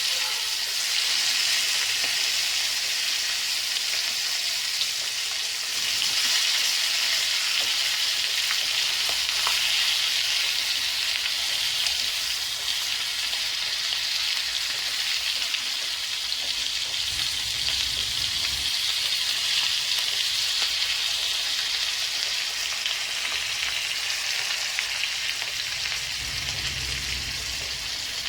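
Masala-marinated crab pieces deep-frying in a small pan of hot oil: a steady sizzle with faint crackles.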